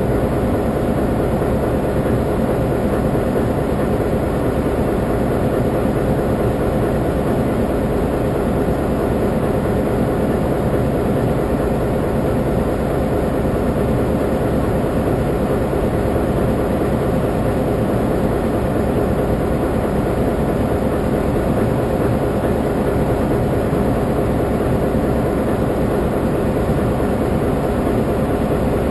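Taiwan Railway diesel-electric locomotive idling, a steady unbroken engine drone with a constant hum.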